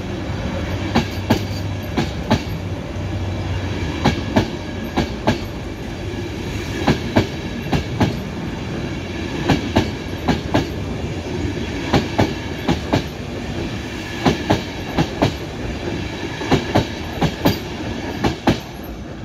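LNER InterCity 225 Mark 4 coaches rolling past with a steady rumble, their wheels clicking over rail joints in a clickety-clack, the clicks often coming in quick pairs.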